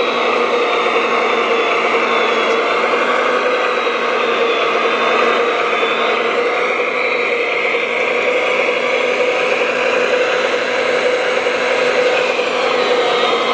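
Steady whir of the electric motors and gearing of RC construction machines working, with a thin high whine that wavers in pitch.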